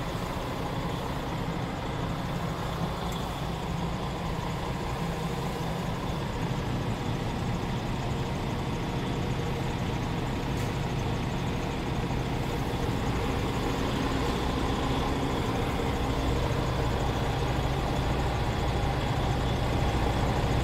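Scania R410's 13-litre six-cylinder diesel idling steadily, heard from inside the truck's cab; it grows slightly louder near the end.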